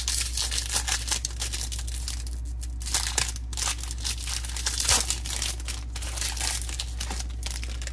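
Foil wrapper of a Topps Series 1 baseball card pack being torn open and crinkled by hand: a dense, irregular crackling of the foil.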